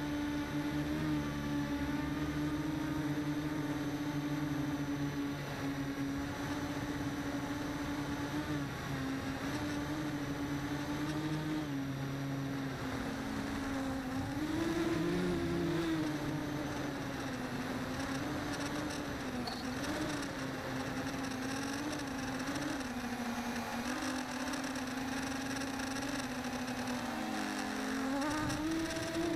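Small radio-controlled model's motor buzzing steadily close by, its pitch wavering up and down with the throttle, rising briefly about halfway through and dipping just before the end.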